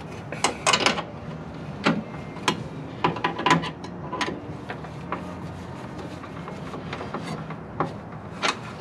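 Hand tool tightening the small Phillips mounting screws of a new voltage regulator on a Ford F100's fender: irregular metal clicks, ticks and scrapes, thickest in the first few seconds and again near the end.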